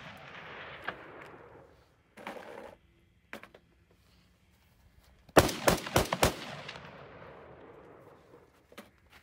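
A rifle fired in a quick string of about five shots within a second, about five seconds in, with a long echo dying away after it. Before that, the echo of a shot fired just earlier fades out.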